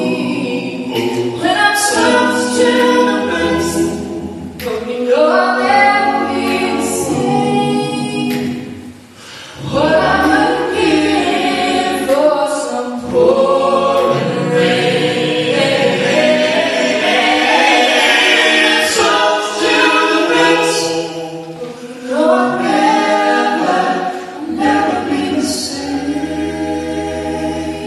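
A mixed vocal quartet, one woman and three men, singing a gospel song a cappella in close harmony through microphones, with a short pause between phrases about nine seconds in.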